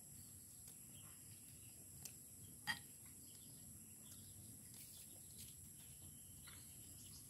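Near silence outdoors: a faint, steady high insect drone, with one short sharp chirp-like sound about a third of the way in.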